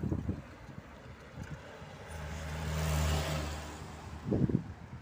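A car drives past close by. Its tyre noise and engine hum rise to a peak about three seconds in and then fade. Wind buffets the microphone with short thumps at the start and again near the end.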